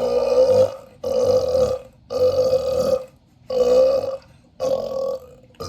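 A man burping on purpose: five long, even-pitched burps in a row, each just under a second, with short pauses between, then a brief one near the end.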